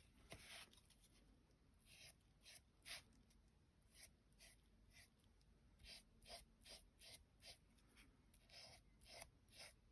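Faint swishes of a makeup brush spreading glitter Mod Podge over a napkin-decoupaged ornament: short strokes, about two a second, unevenly spaced.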